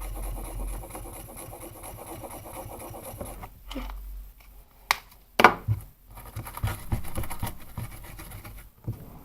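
Scratchy rubbing and scraping as clear slime is coloured with a highlighter pen and worked by hand, with a couple of sharp clicks about five seconds in.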